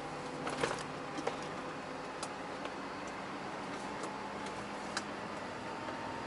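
Inside a truck cab on the move: a steady low engine and road hum, with a few scattered short clicks, several in the first second and a single one about five seconds in.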